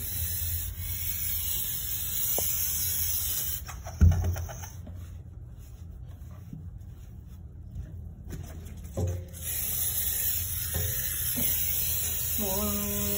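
Tap water running and splashing onto a wet cat in a stainless steel kitchen sink, stopping for a few seconds in the middle and then running again. A dull knock against the sink about four seconds in, another about nine seconds in, and background music starts near the end.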